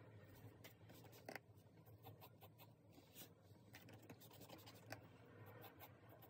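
Faint pencil scratching on sketchbook paper: short sketching strokes and light ticks, with a sharper tick about a second in and another near five seconds.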